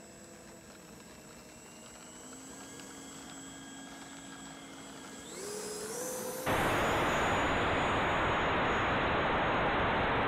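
Brushless electric motor and propeller of a 3D-printed RC Cessna 152 whining faintly in flight, the pitch stepping up twice as the throttle is opened. About six and a half seconds in it switches abruptly to a loud steady rush of wind and propeller noise picked up by the plane's onboard camera.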